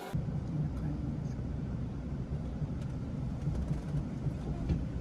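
Steady low rumble of a road vehicle running, with a few faint clicks.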